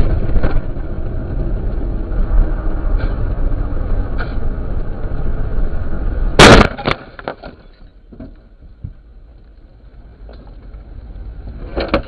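Car driving with a steady road and engine rumble, then a single very loud crash about six and a half seconds in: a vehicle collision picked up by a dash camera's microphone. Afterwards it drops much quieter, with a few small knocks.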